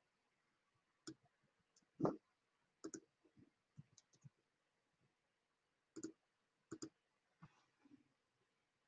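Near silence broken by about a dozen sparse, faint clicks and taps at irregular intervals, the loudest about two seconds in.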